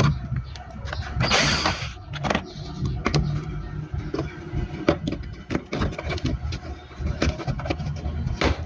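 Irregular clicks, knocks and clatter of a mini washing machine being handled and worked on, over a low rumble.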